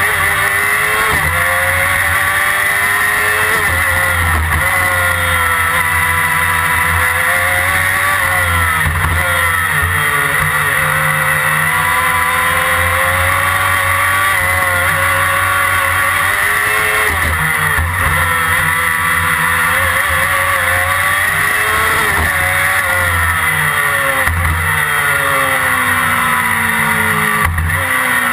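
Onboard sound of a Formula Predator's single-seater race car's 600cc engine at racing speed. The revs rise and fall over and over, with quick drops at each gear change.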